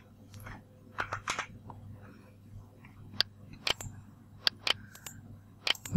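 About a dozen sharp clicks of a computer mouse and keyboard keys, at irregular intervals, over a faint steady hum.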